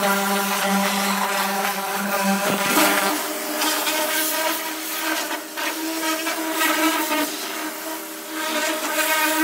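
Pressure washer spraying the underside of a chemically stripped car body: a steady motor drone under the hiss of the water jet on sheet metal, blasting off loosened paint and seam sealer. The drone's tone changes about three seconds in.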